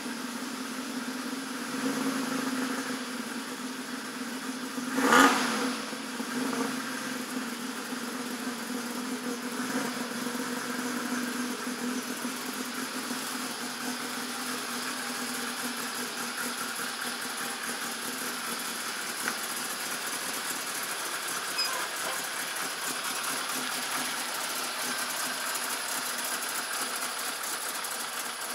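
Citroën GS's air-cooled flat-four engine running steadily as the car pulls slowly out of the garage past the camera, with one short loud burst about five seconds in.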